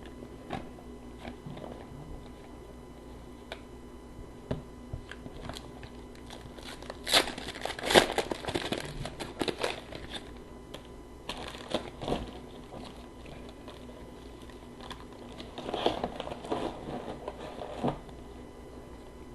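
Plastic hockey card pack wrappers being torn open and crinkled, coming in a few short bursts of rustling with small clicks and taps in between.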